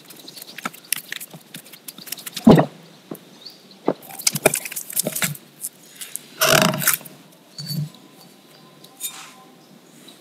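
Hands kneading glutinous rice flour dough in a ceramic bowl: irregular squishing and small clicks, with two louder, heavier presses of the dough against the bowl about two and a half and six and a half seconds in.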